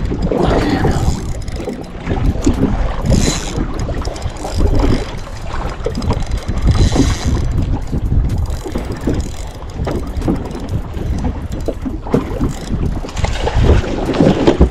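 Wind buffeting the microphone and water slapping against a small boat, with a spinning reel being cranked as a hooked fish is reeled in. A burst of splashing near the end as the fish comes to the side of the boat.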